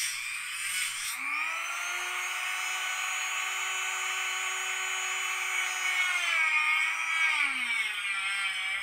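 Dremel rotary tool with a 1-inch cutoff wheel cutting 1/8-inch smoked plexiglass: a high motor whine over a gritty cutting hiss. The whine climbs in pitch about a second in, holds steady, then wavers and drops lower near the end.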